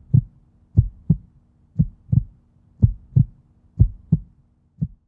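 Human heartbeat: steady double "lub-dub" thumps, about one beat a second, over a faint low hum.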